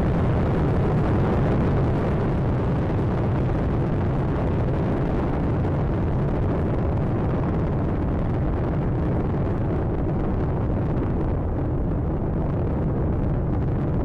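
Space Shuttle Atlantis's three main engines and solid rocket boosters during ascent: a steady, continuous rumbling roar, its higher hiss fading slightly near the end as the vehicle climbs away.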